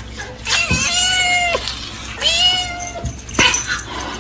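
A cat meowing: two long, drawn-out meows of about a second each, each dropping in pitch at its end, with a sharp click near the end.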